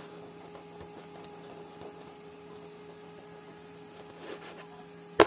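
Steady electrical mains hum, with a faint rustle about four seconds in and one sharp knock just before the end.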